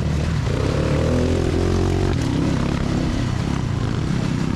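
Dirt bike engine running as it rides down a rocky trail, its pitch rising and falling with the throttle in the first two seconds and then steadier, over a steady rushing hiss.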